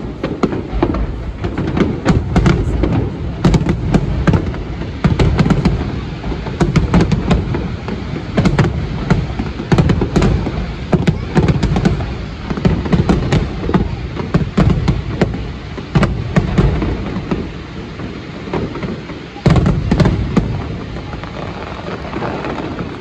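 Fireworks display: a dense barrage of rapid bangs from bursting shells over a continuous low rumble. A big burst comes about twenty seconds in, then it thins out near the end.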